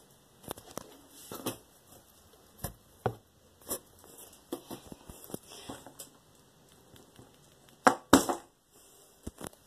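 Handling noise: scattered taps, knocks and rustles as the handheld phone is moved about and brushes against surfaces, loudest in a couple of thumps about eight seconds in.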